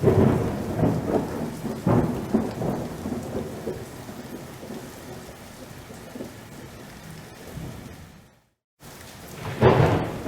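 Steady rain with rolling thunder: a loud rumble at the start and another about two seconds in, fading away, then a fresh rumble near the end. The sound cuts out completely for about half a second shortly before that last rumble.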